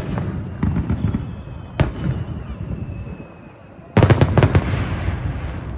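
Fireworks bursting over water: a single sharp bang about two seconds in, then a rapid cluster of bangs about four seconds in, with crackling and low rumble trailing after them.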